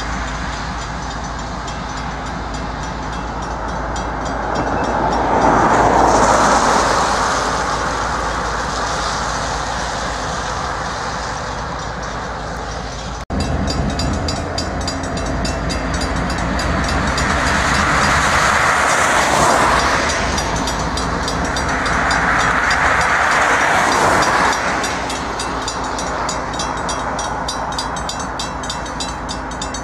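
A string of Union Pacific diesel locomotives hauling an empty ballast train past at low speed, their engines giving a steady low drone. Three louder swells of noise come and go over it, and there is a short break about 13 seconds in.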